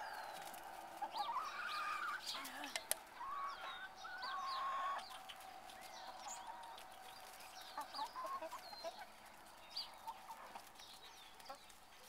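Small flock of young chickens clucking and calling, with a couple of longer held calls in the first five seconds, then quieter scattered clucks. A single sharp click about three seconds in.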